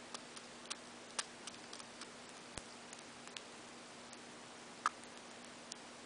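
Budgerigar pecking at seed inside a paper cup: irregular small sharp clicks of its beak, with one louder click about five seconds in, over a faint steady hum.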